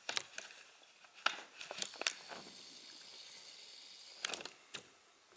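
Handling noise: scattered light clicks and knocks, with a faint high hiss for about two seconds in the middle, as the camera is moved in closer.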